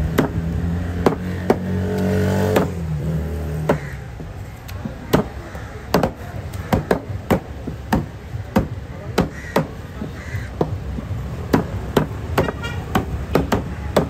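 Heavy curved fish knife chopping parrotfish flesh into chunks on a wooden cutting block: a string of sharp chops, coming faster in the second half. A low hum sounds under the first few seconds.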